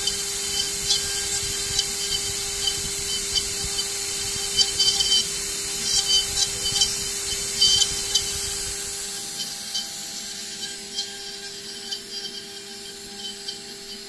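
CNC milling machine cutting a lithophane, with its spindle running and a small end mill engraving a white disc: a steady hum under scratchy cutting noise with frequent small crackles. About nine seconds in, the low rumble drops out and the sound grows quieter, though the hum and crackles go on.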